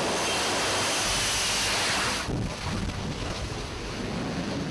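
F-35B jet engine at high power during a take-off from a carrier deck: an even rush of jet noise that eases off about two seconds in as the jet climbs away.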